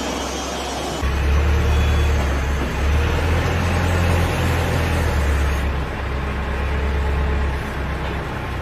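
A heavy engine running steadily with a low hum, its sound shifting abruptly several times.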